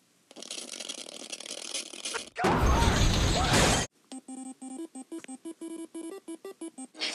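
Cartoon sound effects: a hiss, then a loud crash lasting about a second and a half, then a quick run of short bleeping notes that repeat rapidly.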